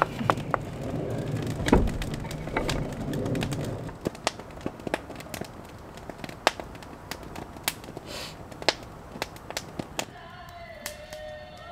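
Wood fire burning in a fire pit, crackling with scattered sharp pops. Near the end, faint distant singing comes in.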